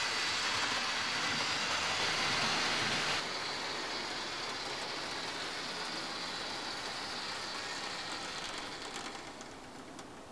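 Model OO gauge Lima diesel locomotives running on the layout track: a steady whirring hiss of the electric motor and wheels on the rails. It drops abruptly to a quieter level about three seconds in, then fades out near the end as the locomotive slows and stops.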